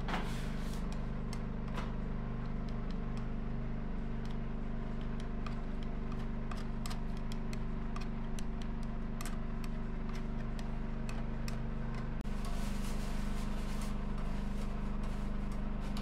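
Light clicks and taps of a palette knife against a wooden paint palette while paint is mixed, over a steady mechanical hum in the room.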